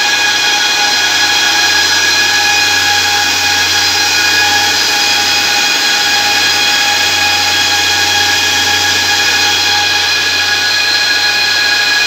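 Cooling fans in an open telecom equipment cabinet running: a steady, loud whir with several high, even whining tones over a low hum.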